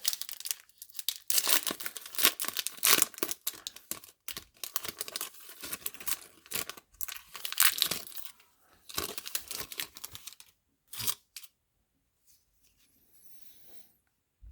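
Foil baseball card pack wrapper being torn open and crinkled, a run of tearing and rustling for about ten seconds, then a few light handling sounds before it goes quiet.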